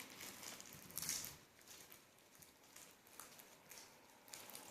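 Faint sticky crackles and squelches of a stiff homemade glue-and-borax slime being squeezed in the hands, mostly in the first second or so.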